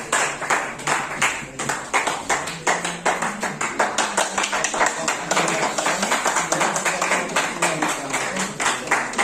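A small group of people clapping their hands in a quick, uneven run of claps, with voices talking underneath.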